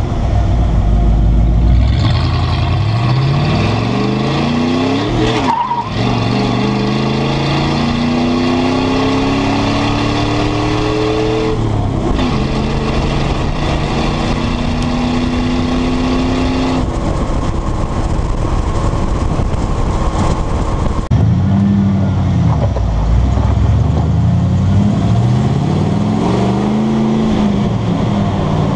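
Exhaust note of a 1995 Ford F150's 302 V8, fitted with an exhaust cutout, pulling through the gears of its five-speed manual. The pitch climbs, breaks at a shift about six seconds in and again about twelve seconds in, holds steady while cruising, then dips and climbs again through another pull near the end.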